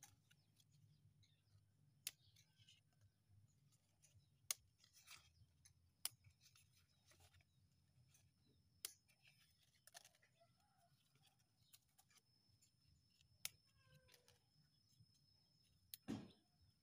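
A handful of faint, sharp snaps, one every second or few, as leaf stalks are pinched and broken off a green jackfruit shoot cutting by hand. Between the snaps it is near silence.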